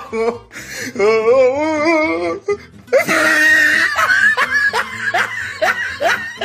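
Comic sound-effect track over the clip: music with a wavering, quavering voice-like note, then from about halfway a burst of laughter in short rising 'ha' notes, about three a second.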